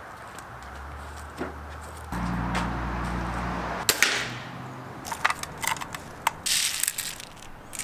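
BB gun shots: a few sharp snaps, the loudest about four seconds in, among lighter clicks, over a low bass line of background music.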